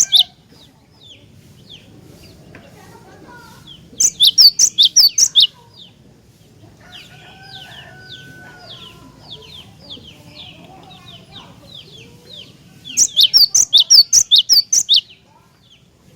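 Cinereous tit (glatik batu) singing: two loud runs of rapid, high, repeated down-slurred notes, about 4 s and 13 s in, each lasting about a second and a half. Fainter repeated chirps carry on between the runs.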